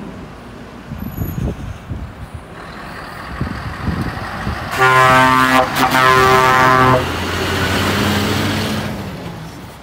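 Scania R620 lorry with its 16-litre V8 pulling past, the engine rumbling, then the horn sounding loudly in two blasts of a second or so, about five seconds in. The V8's drone carries on after the horn and fades away as the truck moves off.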